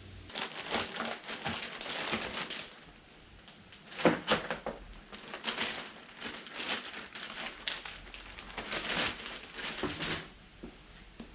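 Crinkling and crackling handling noise in four bursts of one to three seconds, with quieter gaps between them.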